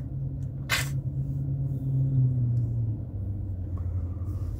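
Steady low hum inside a car cabin, with one short breath about three-quarters of a second in.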